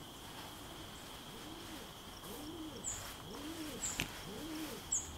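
Dove cooing: a steady run of low, arched coo notes, one about every two-thirds of a second, starting about a second and a half in. A few faint high bird chirps and a couple of light knocks come through as well.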